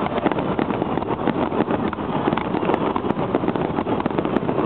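Fireworks barrage: many shells launching and bursting in quick succession, merging into a steady, unbroken rumble with fine crackling throughout.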